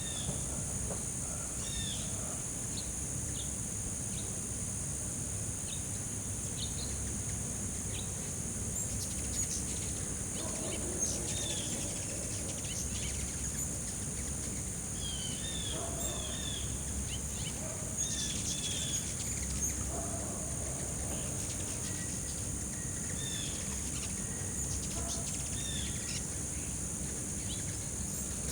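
Steady high-pitched insect drone with short bird chirps repeating every second or two, over a low rumble.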